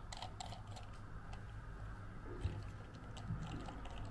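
Light clicks and crinkles of hands handling a small plastic dropper bottle and crumpled wrapping, a cluster in the first second and another a little past halfway.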